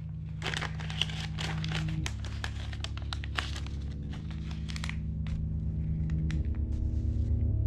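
Banknotes being counted by hand: quick papery rustles and flicks that thin out after about five seconds, over a low sustained music drone that swells toward the end.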